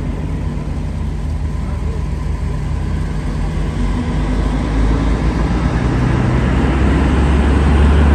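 Low, steady engine drone of a motor vehicle running, growing steadily louder.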